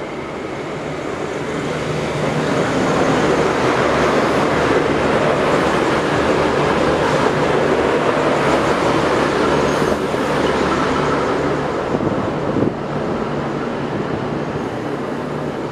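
A V/Line diesel passenger train passing through the station at speed: engine hum and rushing wheel-and-rail noise build over the first few seconds, stay loud, then drop off sharply about three-quarters of the way through and fade.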